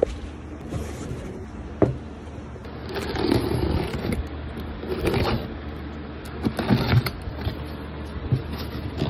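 Cardboard box being opened: a utility knife slicing the packing tape and the flaps being pulled back, heard as rough scraping rustles with a couple of sharp knocks.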